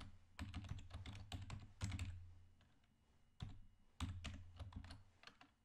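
Typing on a computer keyboard: two runs of quick key clicks with a pause of about a second between them.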